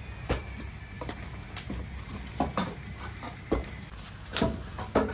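Hand-portioning of dough from a steel pot: irregular soft slaps and knocks, about one or two a second, with the loudest near the end.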